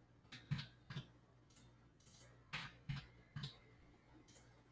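About six faint, separate clicks spaced irregularly, made while tool-coordinate values of 150 are being entered into the robot arm's control software.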